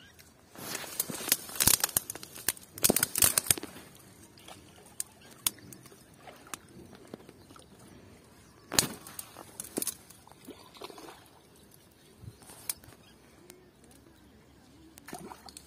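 A hooked rohu splashing and thrashing at the water's surface: a dense run of splashes in the first few seconds, then single splashes every second or two.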